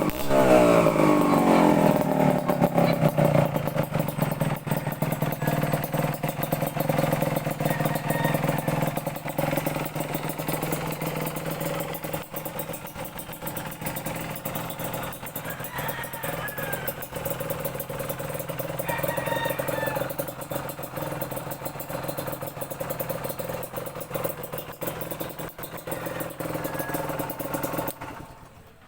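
Kawasaki KMX 125 single-cylinder two-stroke engine dropping from a rev, its pitch falling over the first two seconds, then idling steadily with a rapid ticking exhaust note. The engine sound stops abruptly near the end.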